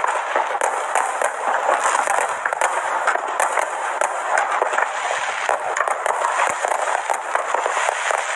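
Fireworks display with dense, rapid crackling and popping that goes on without a break.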